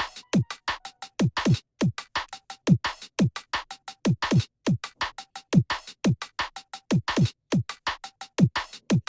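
Electronic background music with a drum-machine beat: deep kick drums that drop in pitch, snappy snare and hi-hat hits, and short synth notes.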